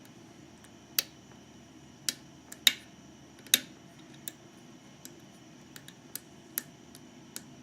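Lock pick and tension wrench working the pins of a GeGe eAP2000 five-pin pin-tumbler lock: about a dozen sharp, irregularly spaced clicks, the loudest between two and a half and three and a half seconds in.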